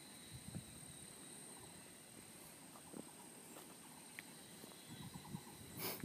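Quiet outdoor ambience: faint, uneven low rumbles of wind on the microphone under a steady, faint high-pitched whine, with one sharp click near the end.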